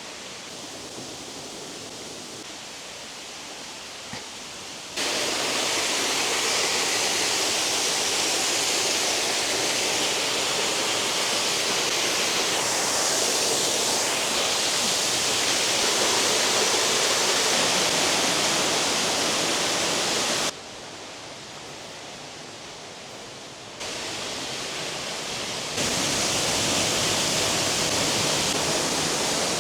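Waterfall's rushing water: a steady, even noise that jumps suddenly louder about five seconds in, drops back for a few seconds near the end, then returns.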